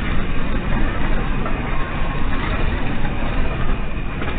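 Steady, dense low rumble through a security camera's microphone: the ground noise of the 6 February 2023 Kahramanmaraş earthquake.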